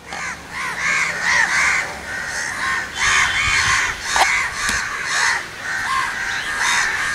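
Several crows cawing over and over, short calls following each other several times a second and overlapping.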